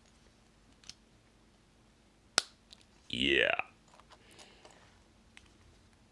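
Small plastic LEGO pieces clicking as they are pressed together: one sharp click about two and a half seconds in, with a few fainter clicks around it.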